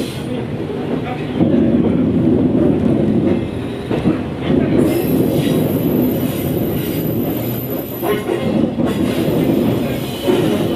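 Diesel railcar heard from inside its cab, rolling slowly through yard points with a steady rumble. The wheels knock a few times over rail joints and points, and a high wheel squeal comes in for a few seconds in the middle.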